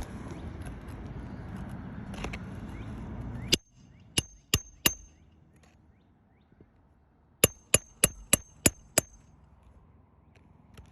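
Hammer driving roofing nails into asphalt shingles: four sharp strikes, a pause of a couple of seconds, then a quick run of six strikes, each with a short metallic ring. A steady rushing noise runs under the first few seconds and cuts off suddenly just before the strikes.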